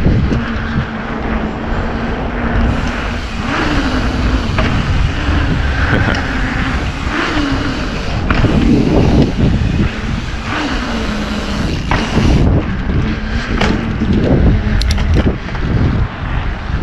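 A vehicle engine running over a heavy low rumble, its pitch rising and dropping every few seconds.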